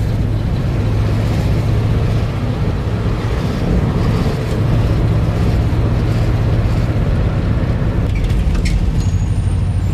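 Steady low engine and road rumble heard inside a moving taxi's cabin, with a faint click or two near the end.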